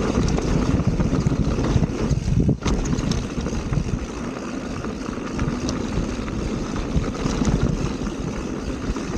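Wind buffeting the microphone of a mountain biker's action camera while riding a dirt trail, with a steady rumble and scattered clicks and rattles from the bike.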